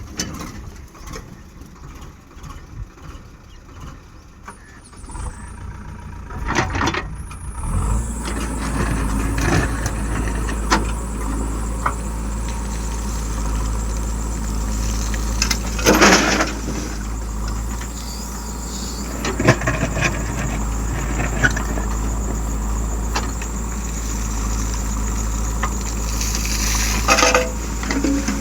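Vehicle engine running, louder and steadier from about eight seconds in, with occasional knocks, a loud clatter about halfway through and a brief squeal near the end.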